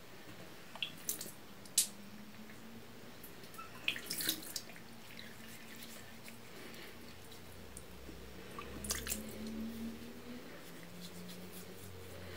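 Quiet room tone with a faint steady low hum and a few soft scattered clicks and taps.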